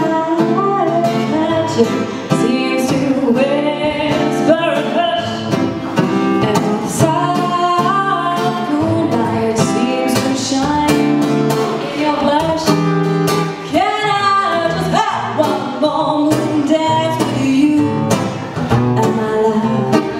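A woman singing a melody with a strummed acoustic guitar accompanying her.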